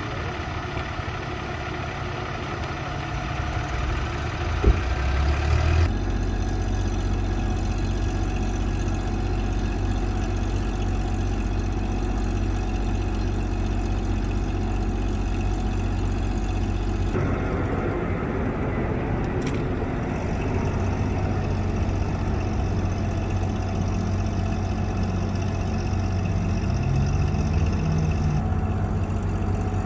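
An engine idling: a steady low rumble that shifts abruptly about six seconds in and again about seventeen seconds in.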